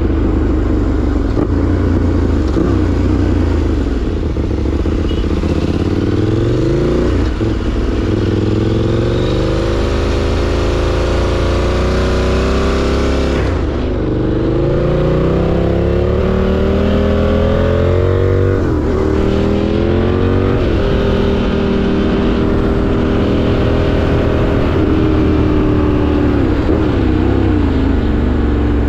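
KTM 890 Duke's parallel-twin engine under way, its pitch climbing under throttle and dropping sharply at each upshift, several times, then holding steadier near the end. A steady rush of wind and road noise runs underneath.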